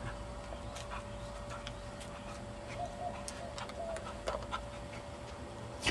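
Faint, irregular ticks and clicks of a small dog's claws on concrete, over a steady faint hum.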